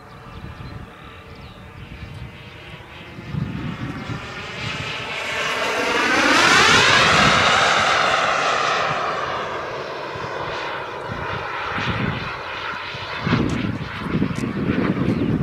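KingTech K-45G2 kerosene turbine of a Mini Avanti S RC jet in flight, making a jet whine and rush. The sound swells to its loudest about halfway through as the jet passes, with a sweeping, phasing tone that rises and then falls, before easing off again.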